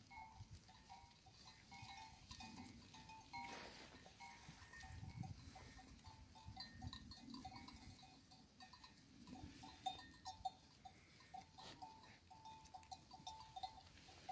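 Flock of sheep grazing, with the faint, short ringing notes of small livestock bells repeating throughout over a low rumble.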